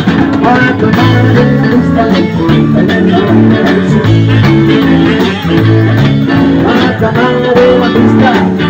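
Live band jamming on drums, electric bass and electric guitars: a steady beat under a bass line that moves every half second or so, with some sliding guitar notes above.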